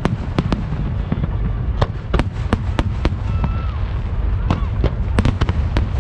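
Fireworks display: a rapid, irregular series of sharp bangs from bursting shells over a continuous low rumble.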